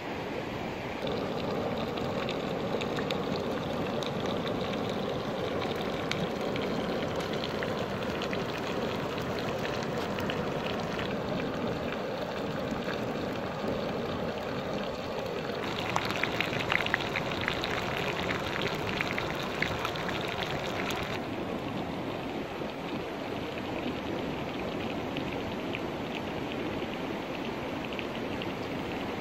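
Steady rushing of a fast river. About halfway through, a wood fire crackles and pops for several seconds over the water noise.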